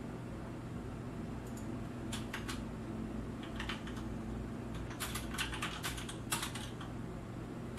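Typing on a computer keyboard: short runs of key clicks about two seconds in and near four seconds, then a longer, busier run between about five and six and a half seconds. A low steady electrical hum lies under it.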